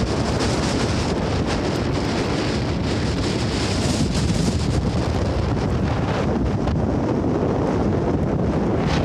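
Wind buffeting the microphone: a loud, steady rumbling rush with no clear engine or rotor beat standing out.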